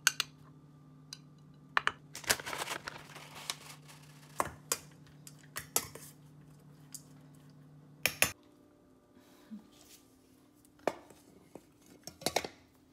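A metal spoon clinking and scraping against a stainless steel bowl and a glass dish while dog food is mixed. The clicks are scattered, with a short stretch of scraping about two seconds in. A faint low hum runs underneath and stops about eight seconds in.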